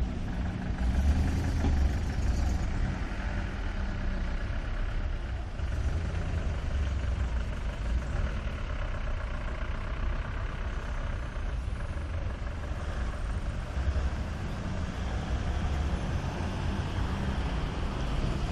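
Street traffic noise: a steady low rumble of vehicles running, swelling a little now and then.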